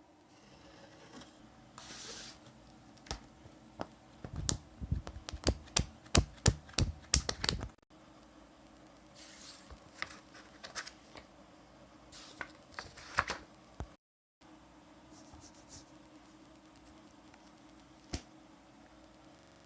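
Irregular runs of sharp clicks, taps and knocks mixed with rustling and scraping, as from small objects being handled close to the microphone. The densest, loudest run of clicks comes with low thuds about a third of the way in and stops abruptly, a second rustling and clicking spell follows, and one lone click sounds near the end.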